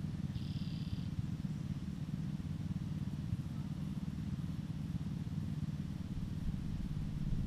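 Mini bike's small engine idling steadily off to the side, a low even rumble.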